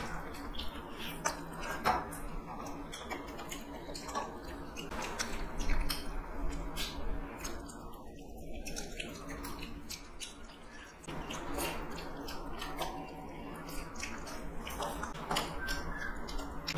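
Two people eating chicken curry and rice with their hands: close chewing and crunching with irregular sharp clicks, over a low steady hum.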